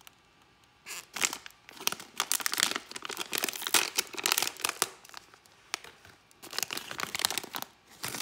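A toy blind bag being torn open and crinkled by hand, in two spells of rustling with a short pause between them.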